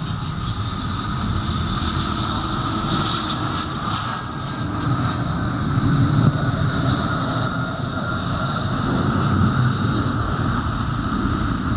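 Twin rear-mounted turbofan engines of a business jet during its landing rollout: a steady jet whine over a rumble. The sound swells a little about halfway through and again near the end as the thrust reversers are opened to slow the aircraft.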